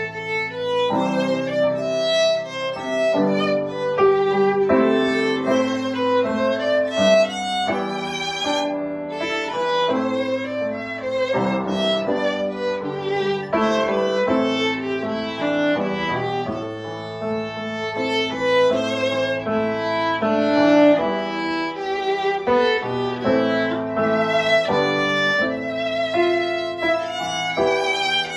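Violin playing a melody with vibrato over grand piano accompaniment, as a violin and piano duet.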